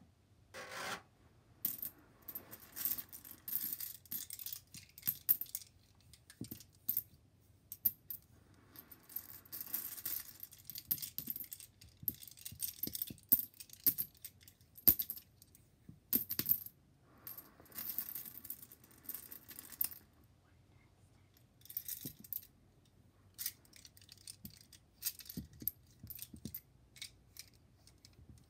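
Small dominoes clicking and clacking together as a handful is shuffled between the hands and let fall onto the pile, in irregular runs of sharp clicks and rattles, with a short pause about two-thirds of the way through.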